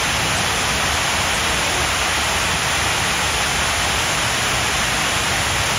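Steady, even rushing noise with no pitch or rhythm.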